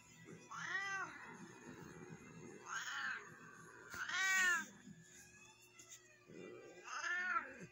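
Tortoiseshell cat meowing four times, each call rising then falling in pitch, the third the loudest.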